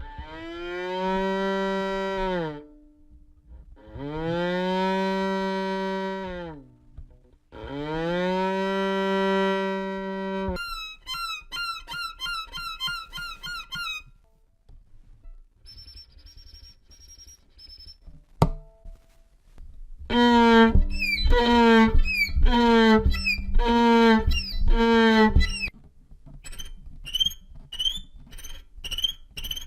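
Violin imitating animal and insect calls. First come three long bowed calls, each bending in pitch at the start and end. Then a run of quick high chirps, a faint high trill, six short calls falling in pitch, and a string of short high squeaks near the end.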